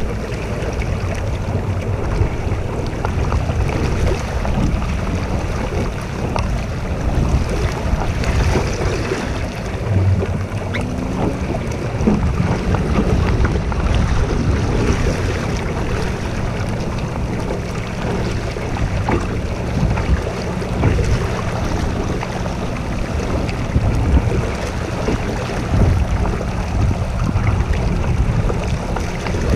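Wind rumbling on the microphone over water rushing and splashing along a Sunfish sailing dinghy's hull while under sail, steady throughout.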